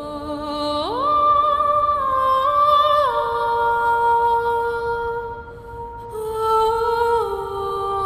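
Background music: a slow melody of long held notes that slide up and step down between pitches.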